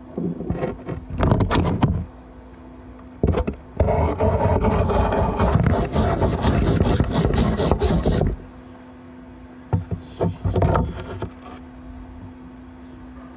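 Arc welding: a few short bursts of crackle like tack welds, then a steady crackling bead about four seconds long, then more short bursts. A steady low hum sits under the pauses between them.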